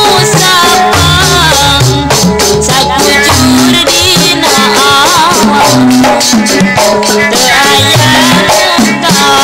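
Sundanese jaipongan music playing without singing: kendang drum patterns and gamelan under a gliding melody line, with the sharp metallic clatter of the kecrek plates throughout.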